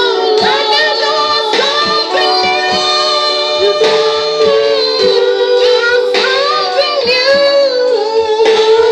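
Worship music: a woman's voice singing held, wavering notes over a keyboard-like accompaniment with a steady beat.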